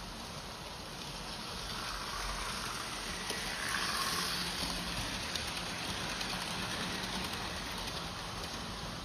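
Vintage Märklin H0 model train running on metal M-track, its wheels rumbling and its motor whirring. The sound swells as the train passes close by about four seconds in, then eases as it runs away.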